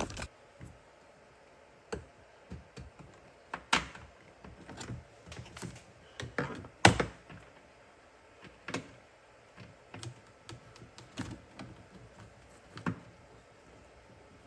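Plastic interior trim pieces and clips on a car tailgate being handled and pressed into place: an irregular scatter of sharp clicks and knocks, the loudest about seven seconds in.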